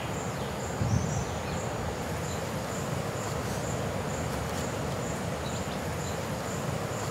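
Outdoor ambience of steadily chirping insects, a thin high pulse repeating about three times a second over a steady background hiss, with a brief low thump about a second in.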